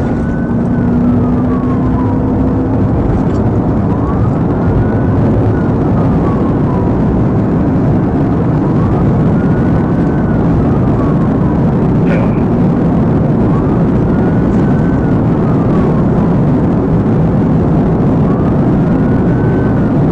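Police cruiser driving at high speed, its loud steady engine and road noise filling the cabin, with a police siren wailing, rising and falling about every four and a half seconds.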